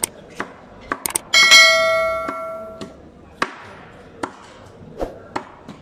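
Knife chopping through a barracuda into steaks on a cutting board, a sharp knock with each stroke, the strokes coming roughly one or two a second. About a second in come a few quick clicks and then a bell ding from a subscribe-button sound effect, the loudest sound, ringing out over about a second and a half.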